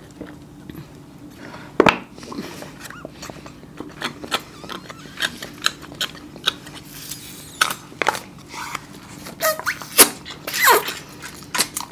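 Two people slurping and sucking a drink from small paper juice cartons, through straws and then straight from the cartons, with the crinkle of the cartons being squeezed. Many short sharp slurps and crackles, coming thicker in the second half.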